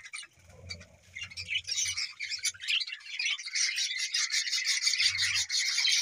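A flock of budgerigars chattering, with many overlapping chirps and squawks. It is thin for about the first second, then grows denser and louder.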